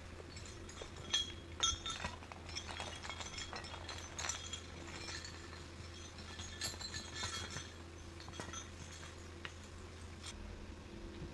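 Faint, irregular metallic clinking and clicking from a horse being ridden along a forest track, heard over a steady low hum.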